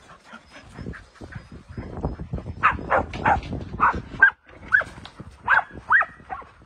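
Dogs barking and yelping in short calls, a dozen or so in quick succession through the second half, excited at being let into a new area. Under the first of them runs the crunch of paws running on gravel.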